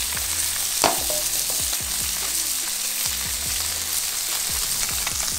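Pacific barracuda fillet sizzling steadily as it sears in hot oil in a pan over high heat, with a sharp tap just under a second in.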